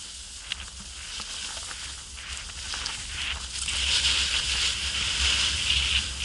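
Snowboard edge scraping over hard-packed snow, growing louder about halfway through as the board carves a turn, over a low rumble of wind on the microphone.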